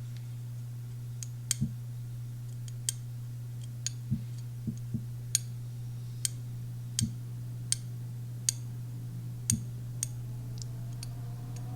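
Light, sharp clicks at irregular spacing, about twenty over the stretch, as a knife blade is worked in short strokes against a sharpening stone to raise a burr. A steady low hum runs underneath.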